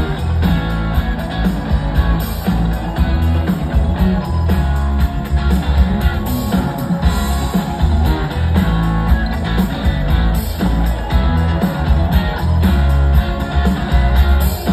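Live rock band playing loudly over a large festival PA, heard from within the crowd: heavy bass, a steady drum beat and electric guitar.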